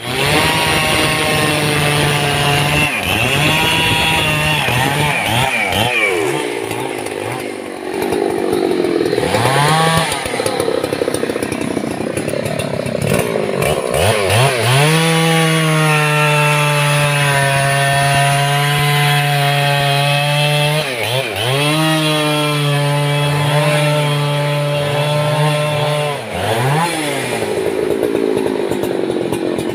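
Two-stroke gasoline chainsaw held at full throttle while cutting into a large felled tree trunk, the engine dropping off and revving back up several times as the throttle is released and squeezed again.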